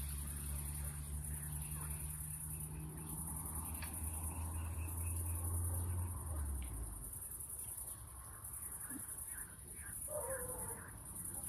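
Dusk riverside ambience: crickets chirring in a steady, high, pulsing band, with scattered bird calls. A low hum underneath stops about six and a half seconds in.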